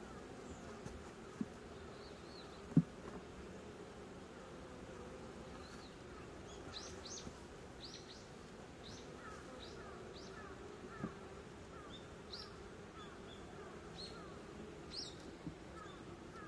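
Honeybees buzzing around a wooden beehive, a steady low hum. A single sharp tap about three seconds in; short high chirps come and go from about six seconds on.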